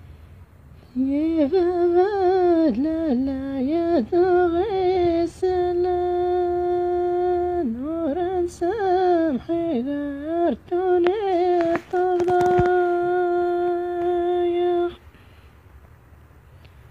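A solo voice hums a wordless, ornamented melody, with quick turns in pitch and long held notes. It starts about a second in and stops about two seconds before the end.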